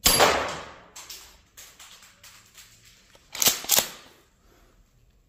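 Golden Eagle M870 gas-powered airsoft shotgun firing a three-shot burst through a chronograph: a sharp report at the start that dies away over about a second, followed by a scatter of small ticks. Two sharp clacks come close together about three and a half seconds in.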